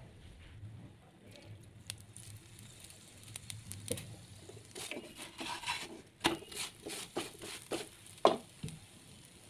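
An aloo paratha dry-roasting on a hot nonstick pan, crackling and clicking irregularly. The crackling is sparse at first, thickens from about halfway in, and includes a few sharp, louder clicks near the end.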